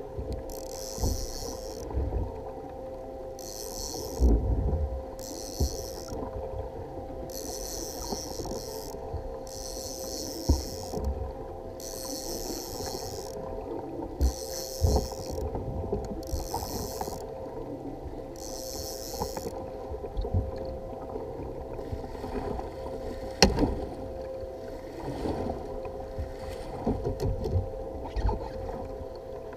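A fishing kayak on open water while an angler fights a fish on a conventional rod and reel. Short hissing sounds come about once a second for roughly the first twenty seconds, then stop. Beneath them run steady water and wind noise and low knocks, with one sharp knock a few seconds after the hissing ends.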